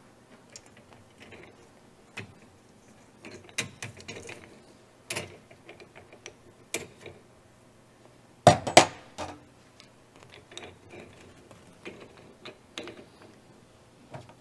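Hands working the metal parts of a floor scrubber's squeegee assembly, thumb screws being taken off and the metal retainer strip and blade lifted away: scattered light clicks and metallic clacks, with a louder pair of knocks about eight and a half seconds in.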